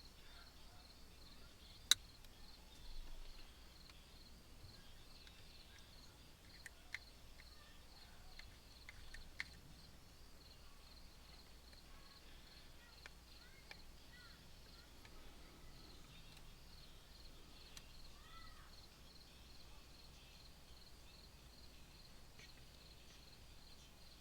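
Faint crickets chirping in a steady pulsing drone, with a sharp click about two seconds in and a few lighter ticks later.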